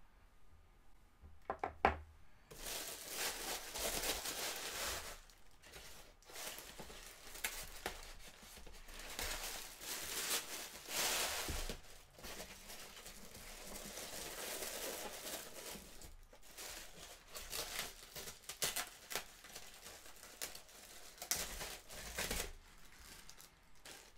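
Packaging crinkling and tearing as small statue accessories are unwrapped by hand, in uneven stretches of rustling, with a few sharp clicks just before it starts.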